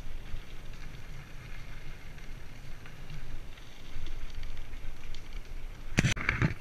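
Bicycle riding on a crushed-gravel trail: wind rumbling on the microphone over the crackle of tyres on gravel, with a loud knock about six seconds in.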